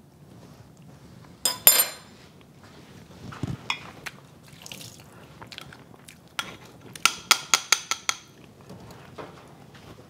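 Metal fork clinking and scraping against a small ceramic bowl while stirring rehydrated meat: two sharp clinks about a second and a half in, a few scattered taps, then a quick run of about eight ringing clinks around seven to eight seconds in.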